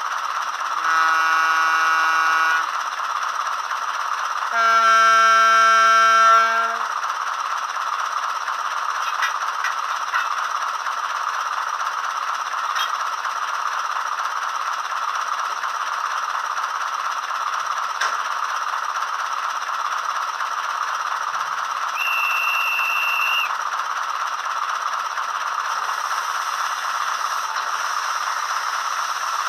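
Sound decoder in a model dock shunter locomotive, playing through its small speaker: a steady diesel engine idle, with two horn blasts of about two seconds each near the start, the second louder and lower-pitched. About 22 seconds in comes a short, high, steady whistle.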